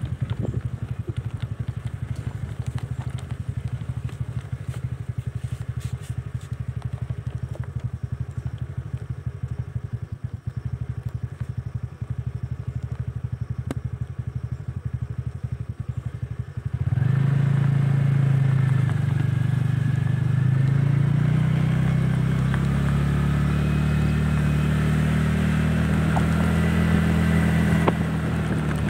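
Motorcycle engine running while riding along a rough path, first a low steady pulsing. About two-thirds of the way through it gets suddenly louder, with a steady hum whose pitch rises slightly as it pulls harder.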